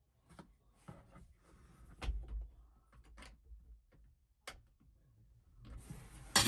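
Scattered light knocks, clicks and rustles of tools and parts being handled, with a soft thump about two seconds in and a sharp click near the middle. A faint hiss builds near the end.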